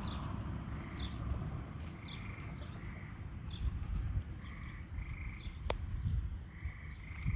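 Rural outdoor ambience: a short, high, falling chirp repeats about once a second, with a softer chirring beneath it, over a low rumble. A single sharp click comes near the end.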